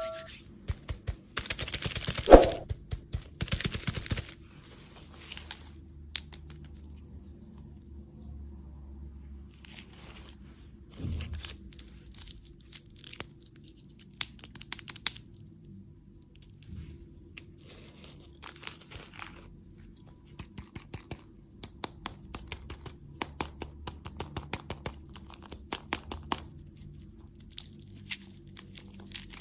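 Packaging being crinkled and torn, with a burst of tearing and a sharp snap in the first few seconds, then scattered small clicks and rustles.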